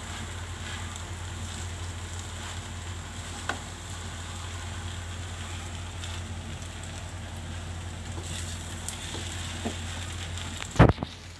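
Rice frying in a pan and stirred with a spatula: a steady sizzling hiss with a few faint clicks, and one sharp knock about a second before the end.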